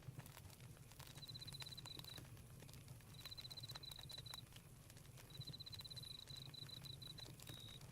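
Crickets chirping in rapid pulsed trills on one high pitch, coming in bouts of one to two seconds with short gaps between, over faint scattered crackles of a campfire.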